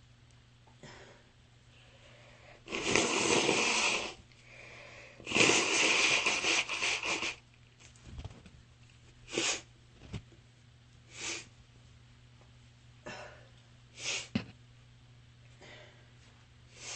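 A person with a runny, stuffy nose sneezing twice, loud and drawn out, about three and five seconds in, then sniffling in short sharp sniffs several times.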